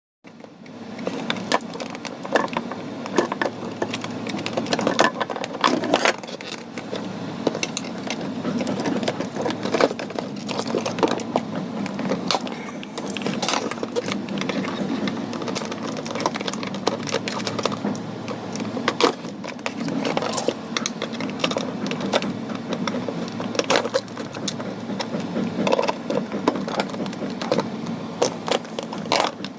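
A small motor running with a dense, irregular clatter of mechanical clicks and rattles over a steady low hum.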